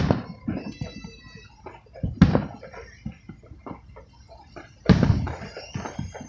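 Fireworks going off: three loud booms, one at the start, one about two seconds in and one about five seconds in, each trailing off, with smaller pops between.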